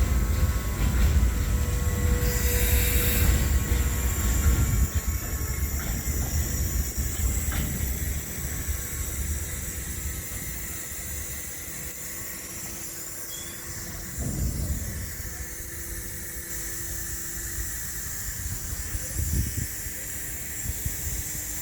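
Freight train of Eas open wagons rolling past on the track, a heavy low rumble with thin steady high tones over it. The rumble dies away after about eight seconds, leaving a quieter rolling noise.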